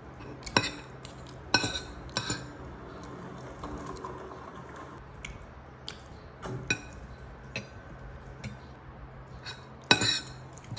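A metal spoon and fork clink and scrape against a ceramic plate while eating. There are a handful of sharp clinks spread through, with a louder pair near the end, over a low steady hum.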